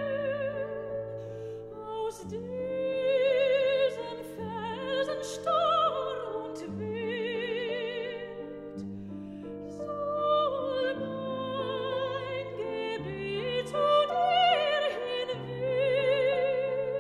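Background music: operatic singing with a strong vibrato on long held notes over sustained low accompaniment chords.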